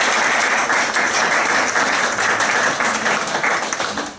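Audience applauding, the clapping starting to die away near the end.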